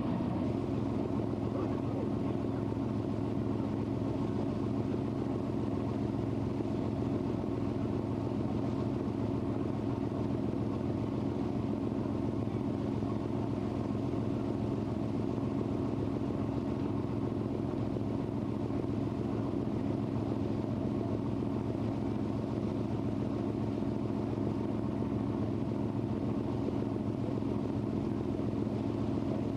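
Lake cruise boat's engine running with a steady, even drone, heard on board.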